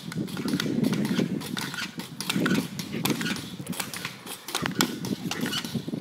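Two pogo sticks bouncing on an asphalt street, their tips striking the road in a fast, uneven run of knocks, several a second, as the two jumpers' bounces fall in and out of step.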